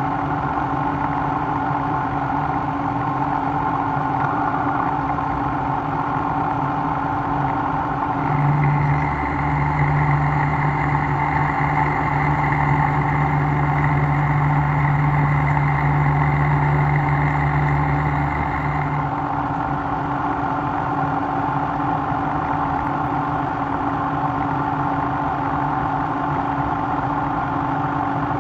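Milling machine running steadily with a motor hum. From about eight seconds in, a louder, deeper hum with a higher whine joins for about ten seconds, then drops back to the plain running sound.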